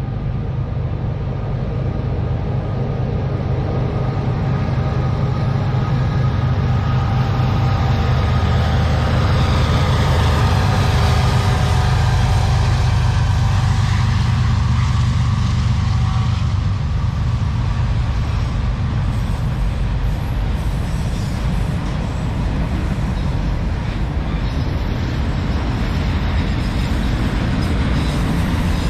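CSX freight train passing close by: the two diesel locomotives, rebuilt SD70AC 4568 and ES44AH 941, run loud and steady through the first half. Their sound eases after about 16 seconds into the continuous rumble and clatter of the autorack and intermodal cars rolling past.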